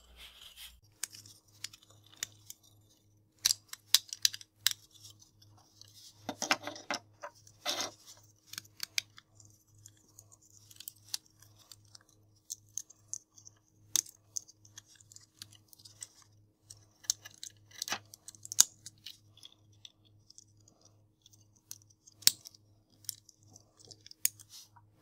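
Bandai Hatch'n Heroes plastic Dory and Nemo figures being unfolded by hand: irregular small clicks and snaps of their hinged plastic parts, with some rubbing and handling in between.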